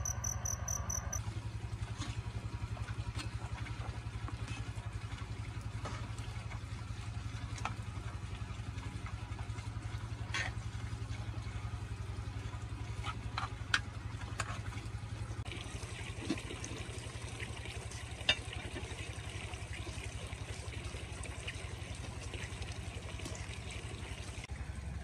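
A small engine running steadily with a low, evenly pulsing drone, with a few sharp clicks about 14 and 18 seconds in.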